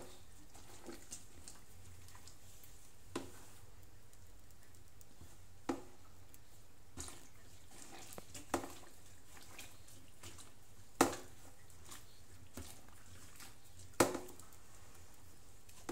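Wet bedsheet squelching and splashing as it is prodded and stirred with a stick in a steaming aluminium pot of water. A handful of sharp wet sounds come a few seconds apart, the two loudest in the second half.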